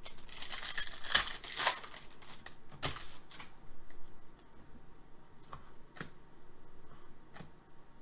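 A foil trading-card pack wrapper being torn open and crinkled, a dense ripping rustle for about two seconds, followed by a few sharp snaps and clicks of cards being handled.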